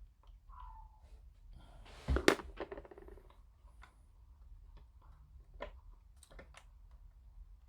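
Small plastic model-kit parts and tools being handled on a work surface: scattered light clicks and taps, with a louder knock about two seconds in.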